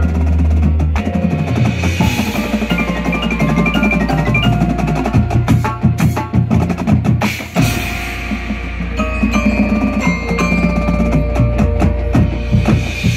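A high school front ensemble plays a fast passage on marimbas and vibraphone with drums. Many quick mallet notes sound over deep, held bass notes, with loud accented strikes near the end.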